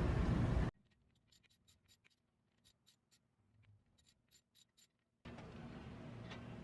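Near silence with a scattering of very faint, short ticks, after a brief stretch of background noise; a low steady hum comes back near the end.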